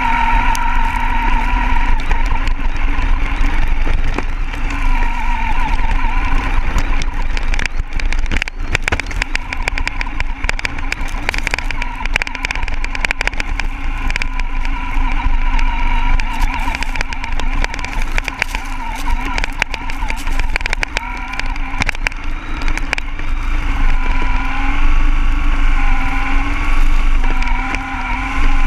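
Radio-controlled off-road buggy driving over sand, heard from a camera mounted on the car: its motor gives a steady, slightly wavering whine, with frequent short knocks as the chassis bumps over the ground.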